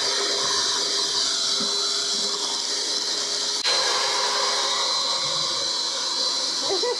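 Electric hand mixer running steadily, a hiss with a high whine over it, as it beats a thickening batch of sucre à la crème (brown-sugar fudge). A short click about three and a half seconds in.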